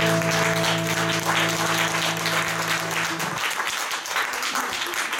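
Audience applauding as the last chord of two acoustic guitars rings out; the chord stops about three seconds in and the clapping carries on.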